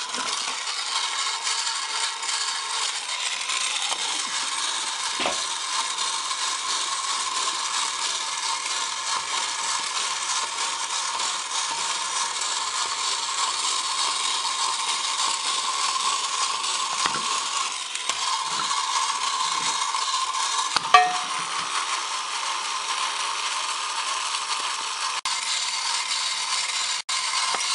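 Tin toy walking bulldog running: the steady whir of its small drive motor and gearing, with a held high hum. Near the two-thirds mark the whir dips briefly, then comes a single sharp knock.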